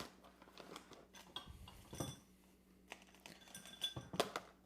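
Rummaging through small hard objects, cat toys among them: scattered light clicks, rattles and clinks, some ringing briefly, with the loudest clinks about four seconds in.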